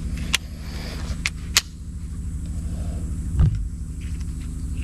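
Sharp metallic clicks from the receiver of a Remington Express Magnum 12-gauge pump-action shotgun as its action is handled, three quick clicks in the first couple of seconds and a dull knock later. Under them runs a steady low rumble.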